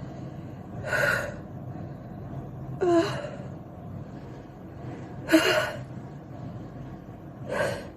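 A woman gasping four times, about every two seconds: short breathy catches of breath with a little voice in them, the third the loudest. They come as a sneeze builds from her nose being tickled with a cotton swab and chhinkni.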